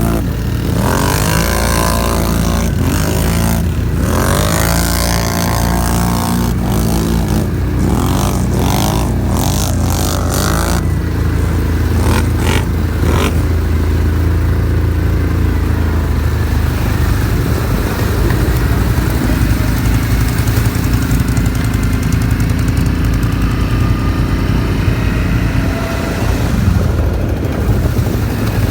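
Can-Am 1000 XMR ATV's V-twin engine revving up and down repeatedly, then running at a steadier drone under a broad rushing noise during roughly the second half.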